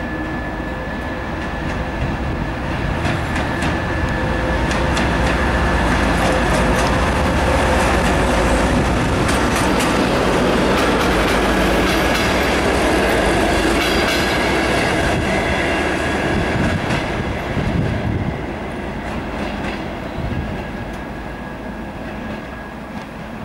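TEP70BS diesel passenger locomotive pulling a suburban train away and past, its diesel engine running under load, loudest about halfway through as it passes. The carriages' wheels clack over rail joints as they roll by, and the sound fades as the train draws away near the end.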